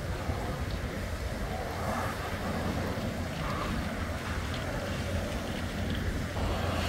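Steady low rumble of distant vehicles, with wind on the microphone.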